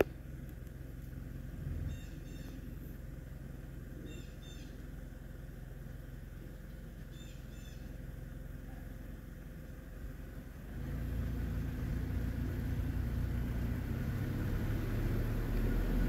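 Low, steady engine rumble of a motor vehicle that gets louder about eleven seconds in, with three brief high bird chirps in the first half.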